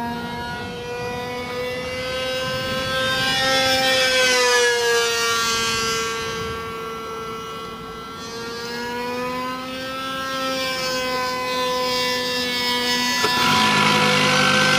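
RC model airplane engine running with a high, steady whine whose pitch drifts slowly up and down as it is adjusted. Near the end it grows louder and rougher.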